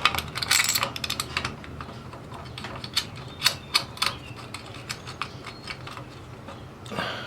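Irregular metallic clicks and taps as a lock nut is worked tight onto a Romex cable connector in an electrical box, with a quick flurry in the first second and a half, then scattered single ticks.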